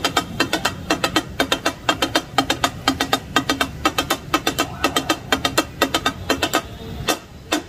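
Two steel takatak blades striking a hot iron griddle as offal is chopped in masala: a fast, rhythmic metal clatter of about five to six strikes a second, with a short pause near the end.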